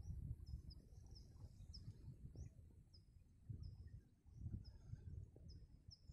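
Low wind rumble gusting on the microphone, with a small bird repeating a short high call over and over, roughly every half second.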